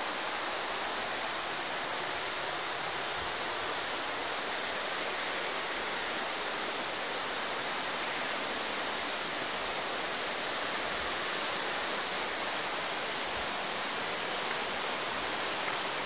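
Rushing white water of a mountain river cascade, a steady, even hiss without break.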